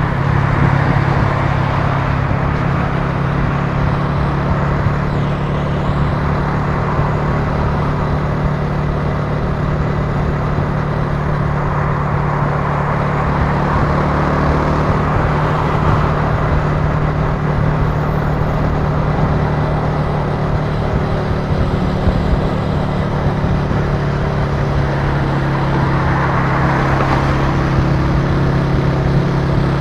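Italika TC300 motorcycle engine running steadily at a constant cruising pace, heard from on the bike, with wind and road noise over it.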